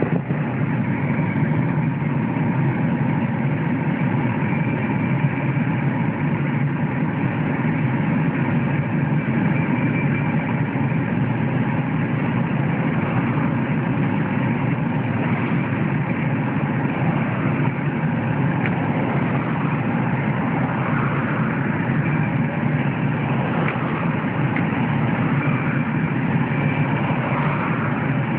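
A car driving along a road, heard from inside the cabin: steady tyre and engine noise.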